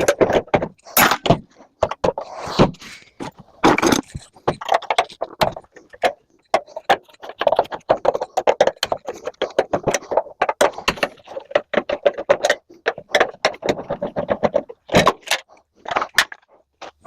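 Metal parts of an old microwave oven clanking and rattling as it is taken apart by hand: a busy, irregular run of sharp clicks and knocks.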